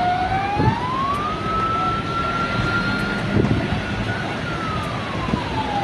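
A fire truck's siren sounding a slow wail: the pitch climbs over the first second or so, holds, then falls near the end. Steady street and crowd noise underneath.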